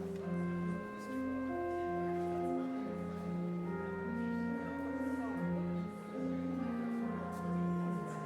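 Slow instrumental music, most likely organ: held chords change every second or so over a steady low bass note.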